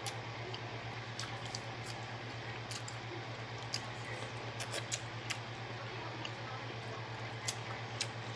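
Close-miked eating: scattered wet mouth clicks and smacks of chewing, over a steady low hum.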